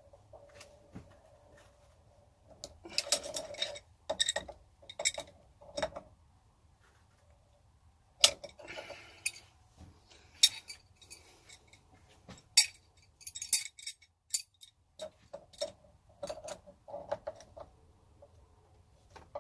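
Irregular metallic clinks, clicks and scrapes, some ringing briefly, as a tool works a threaded water supply hose fitting tight on a water heater.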